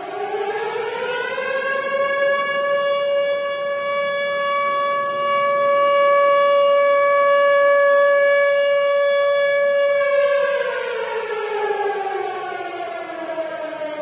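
Tornado warning siren wailing. The pitch rises over about two seconds, holds steady for about eight, then slowly falls away.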